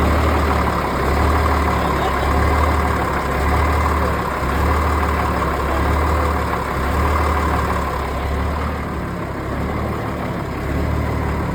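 M35A2 deuce and a half's multifuel inline-six diesel idling steadily through a straight-piped exhaust with no muffler, its low drone swelling and easing slightly every second or two.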